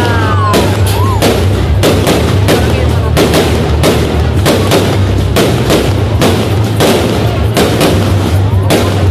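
Fireworks going off in rapid, irregular bangs and cracks over a steady low rumble.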